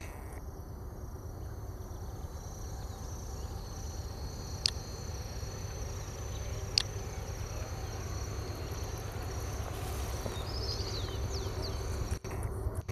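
Insects chirping in a steady high pulsing chorus over the low rumble of a freight train's diesel locomotives, led by a GE C36-7, approaching from afar and slowly growing louder. Two sharp clicks in the middle and a short bird call near the end.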